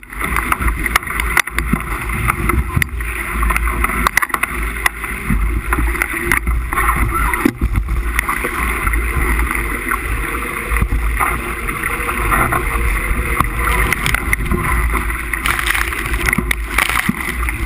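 Wind buffeting the microphone, with water rushing and splashing along the hull of a Musto skiff sailing fast in gusty wind. The sound is a steady loud rush with a deep rumble and frequent short crackles.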